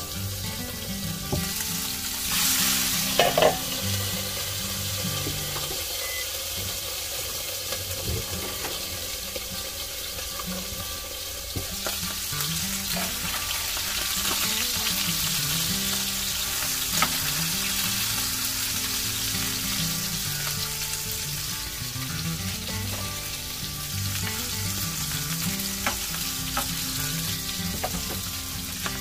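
Salmon steaks frying in a pan: a steady sizzle that grows louder partway through, with a few sharp knocks of a utensil against the pan near the start.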